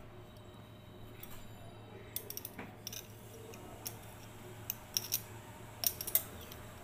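Light clicks and ticks of a thin rod and a leaf being pushed down inside a glass test tube. They come in small clusters from about two seconds in, with the sharpest ones near the end, over a low steady hum.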